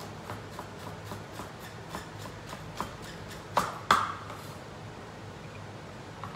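Chef's knife chopping carrot on a wooden cutting board in quick even strokes, about three a second, with two louder knocks about three and a half seconds in; the chopping then stops, leaving a steady low hum underneath.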